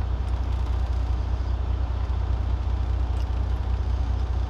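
Steady low rumble of an idling truck engine, heard from inside the cab.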